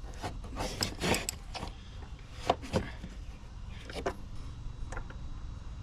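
Irregular metal clicks and knocks of a socket and wrench being fitted and worked on the 24 mm oil filter cap of a 2016 Dodge Durango V6. A quick cluster of knocks comes in the first second or so, then single sharp clicks every second or so.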